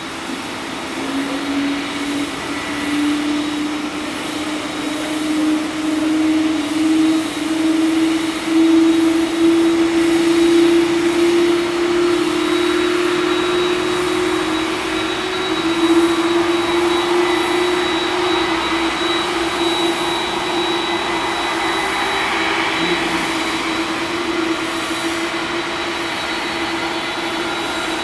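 Jet airliner engines running on the apron: a steady whine that climbs slightly in pitch over the first several seconds and then holds, over a broad rushing hiss.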